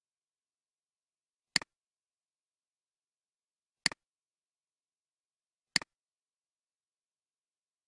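Three computer mouse clicks, about two seconds apart, each a sharp click followed at once by a softer one as the button is pressed and released, with nothing else heard between them.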